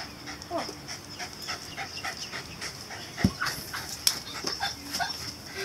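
Rapid, rhythmic panting at several breaths a second, with one dull thud about three seconds in and a sharp click a moment later.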